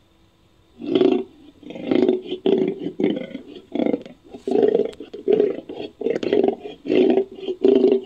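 Made-up sound effect of an American lion, the extinct Ice Age big cat: a fast run of short roaring calls, roughly two a second, starting about a second in.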